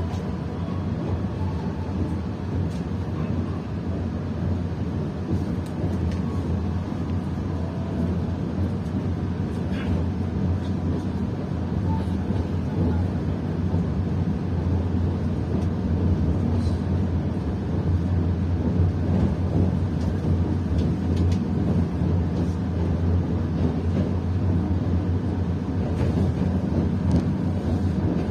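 Train running with a steady low rumble, a little louder in the second half.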